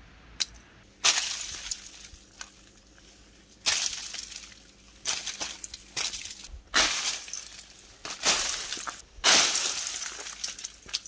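Freezing-rain glaze ice cracking and shattering: about ten sharp, glassy cracks at uneven intervals, each followed by a brief tinkle of breaking ice.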